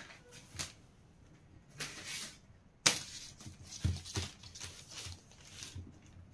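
Hands working brown pattern paper, a plastic ruler and a pen on a table: soft paper rustles and a few light taps. The sharpest tap comes about three seconds in, and a pair of knocks follows about a second later.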